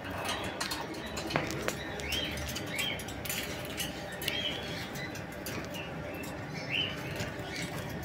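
Amazon parrots making short squeaky chirps every second or so while preening each other, with scattered light clicks in between.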